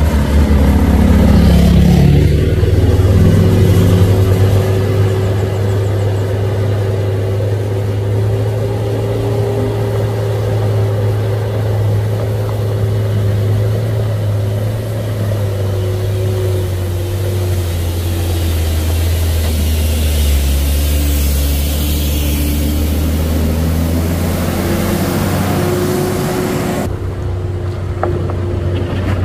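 A heavy truck's diesel engine running close by. Its pitch drops over the first few seconds and climbs again in steps about two-thirds of the way through.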